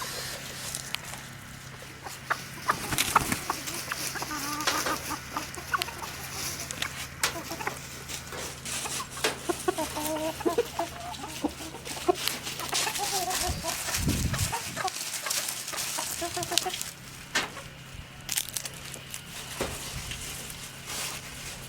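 Chickens clucking quietly in short, scattered calls, over many small sharp clicks.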